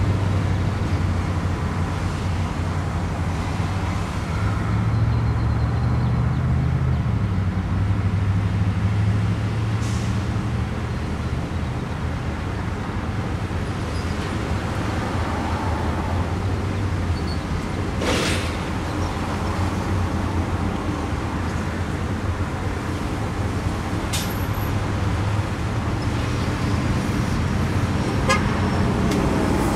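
Steady road traffic through a busy intersection, with vehicle engines and tyre noise rising and falling as cars pass close by. A few short horn toots stand out.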